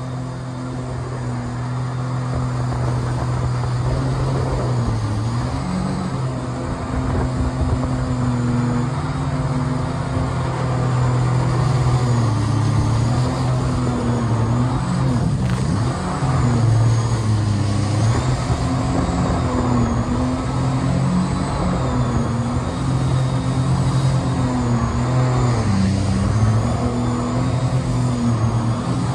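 Mini jet boat's engine and jet drive running under way, its engine speed rising and falling repeatedly over a steady rush of water along the aluminium hull.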